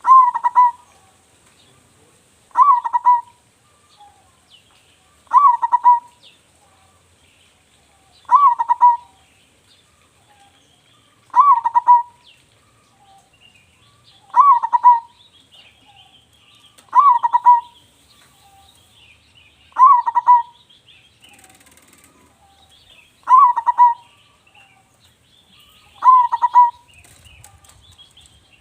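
Zebra dove (perkutut) singing its cooing song over and over: about ten short coo phrases, one roughly every three seconds, each with a quick high note and then lower rolling coos. Other small birds chirp faintly in the background.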